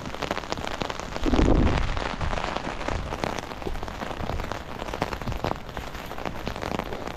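Rain pattering on an open umbrella overhead, a dense, steady tapping of drops on the fabric. About a second in, a brief louder low rumble rises over the patter and fades.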